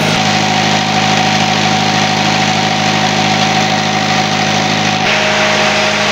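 Isuzu Panther four-cylinder diesel engine of a generator set running steadily at governed speed, with a steady whine over it that steps slightly lower about five seconds in.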